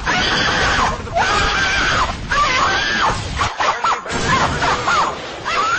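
A person screaming in rage: several loud, long cries, each rising and falling in pitch, with short breaks between them.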